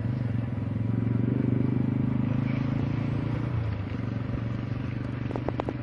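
Motor vehicle engine running steadily with a low hum, with a few quick clicks near the end.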